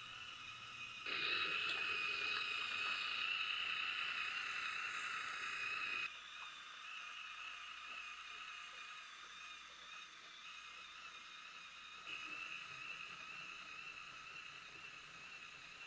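Small electric motor of a LEGO suspended train whining steadily as the train runs along LEGO roller coaster track. The sound gets suddenly louder about a second in, drops back abruptly about five seconds later, and swells a little again near the end.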